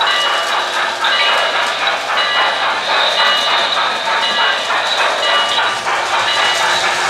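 O-gauge model New York Central steam locomotive running along the track with its onboard sound system playing steam-train sounds, steady and loud.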